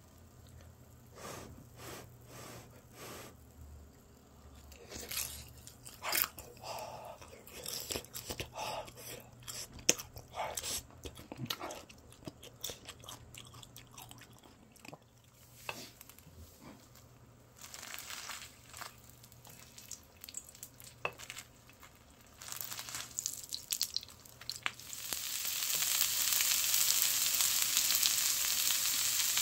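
Close-up chewing and crunching of grilled beef large intestine (daechang), with irregular wet bites and crackles. About 25 seconds in, steady sizzling of daechang frying in its own fat on a grill plate takes over and is the loudest sound.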